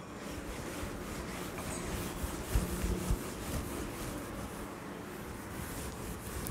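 Chalkboard duster rubbed back and forth across a blackboard, wiping off chalk writing, with a few dull knocks around the middle.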